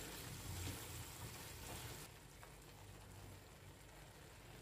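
Faint sizzling of a potato masala curry in a frying pan as it is stirred with a wooden spatula, with light scrapes. The hiss drops away suddenly about two seconds in.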